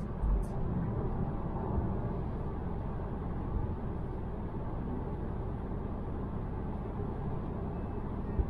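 Steady tyre and wind noise inside the cabin of a Tesla Model 3 Performance driven at speed on a wet track. The electric car gives no engine note. A short knock comes near the end.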